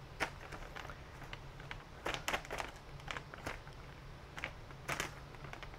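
Bag of vermiculite rustling and crinkling several times, in short sharp spells, as it is handled and set down. A faint steady low hum lies under it.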